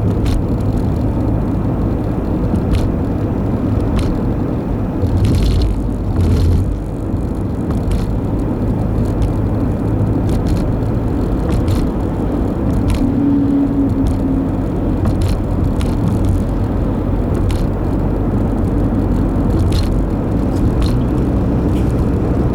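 A car driving along, a steady low rumble of engine and tyre noise, with scattered light clicks or knocks, a couple of them louder about five to seven seconds in.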